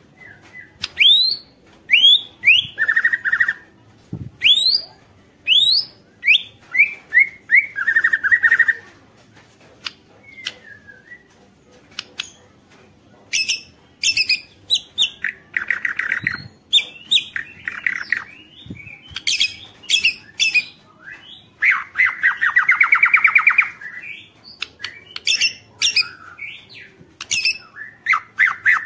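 White-rumped shama (murai batu) singing a varied song. Quick rising whistled notes and sharp high calls alternate with several fast rattling trills, the longest about three-quarters of the way through.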